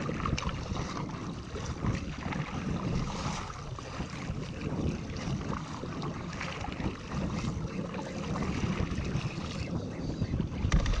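Double-bladed kayak paddle dipping and splashing in sea water as a kayak is paddled along, with water sloshing against the hull and wind buffeting the microphone.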